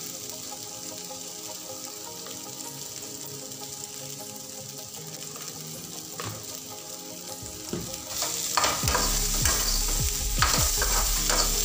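Potato and brinjal pieces sizzling in a metal kadai while a perforated steel spatula stirs them. About eight seconds in the stirring gets louder, with quick scrapes and clinks of the spatula against the pan.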